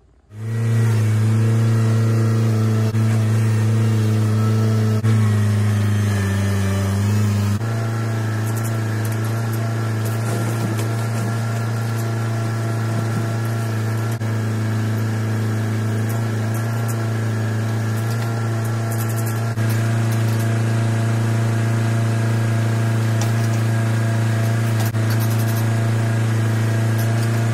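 Compact tractor engine running steadily while its backhoe drags dirt back into a trench. The engine note drops slightly about a quarter of the way in and picks up a little again about two-thirds through.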